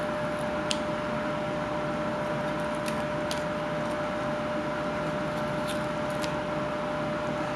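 A whittling knife paring wood, heard as a few faint, sharp clicks as chips are cut, over a steady hum with one held tone.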